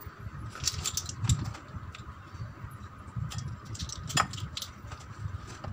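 Light clicks and taps of a plastic spoon scooping flour and tipping it into a bowl of thin batter, with one sharper click about four seconds in.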